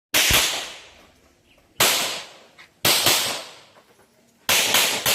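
Gunshots fired at a shooting-competition stage: about five shots at uneven intervals, each sharp crack followed by an echo that dies away over about a second, with two shots in quick succession near the end.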